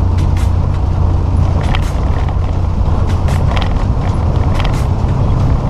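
Truck cab interior while driving: the diesel engine and road noise drone steadily and low, with scattered light clicks and rattles.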